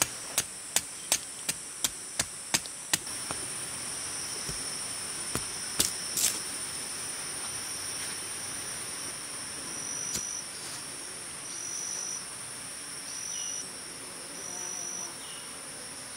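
A knife shaving down a stick of damp wood, a sharp scrape about three times a second for the first three seconds, then a few scattered knocks. Under it runs a steady high buzzing chorus of tropical forest insects, and from about ten seconds in a second insect calls in short repeated notes.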